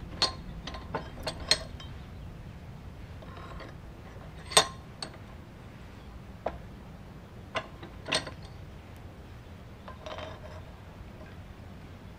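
Scattered sharp metallic clinks and clanks from a steel flat bar being repositioned in a bench vise and the vise handle being worked. About ten knocks, the loudest about four and a half seconds in.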